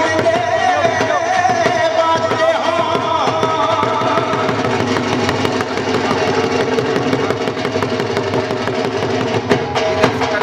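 Punjabi bhangra music: a fast, driving dhol drum beat under a held, wavering melody line.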